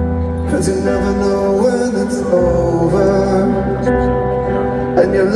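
Live rock band music: sustained chords over a steady bass, with a singing voice and no clear words.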